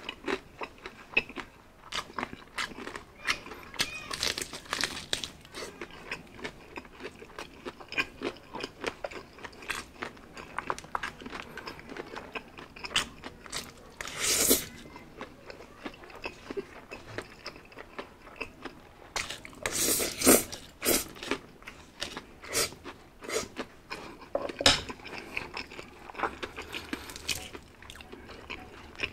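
Close-up eating sounds: crisp crunching bites and chewing of crispy-skinned fried chicken, with a longer slurp of spaghetti about fourteen seconds in.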